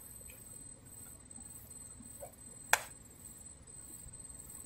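Quiet outdoor background with a steady, faint, high-pitched insect drone, broken by one sharp click a little past halfway.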